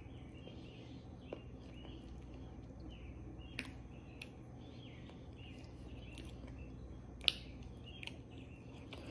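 Quiet mouth sounds of corn starch being eaten off a spoon: small squeaks, smacks and clicks, with one sharper click about seven seconds in, over a steady low hum.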